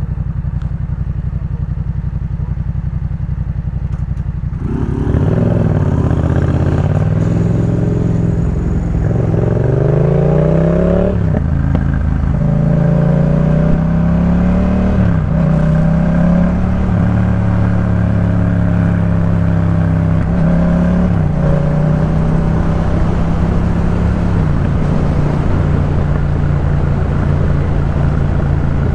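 Yamaha MT-07's 689 cc parallel-twin engine through a Jeskap K4 full exhaust, running steadily at low revs for about four seconds, then pulling away louder. It accelerates up through the gears, the pitch climbing and dropping at each upshift, and settles to a steady cruise for the last several seconds.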